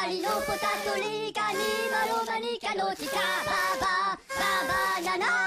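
Minions singing a cappella in high, cartoonish voices, short bouncing syllables in close harmony, barbershop-style.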